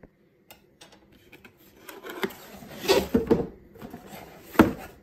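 Cardboard shipping box being opened by hand: its flaps rustle and scrape, with a few knocks and a sharp knock about four and a half seconds in.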